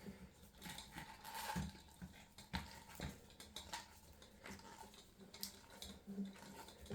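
Scattered light clicks and taps of plastic vacuum-cleaner hose parts being handled and set down.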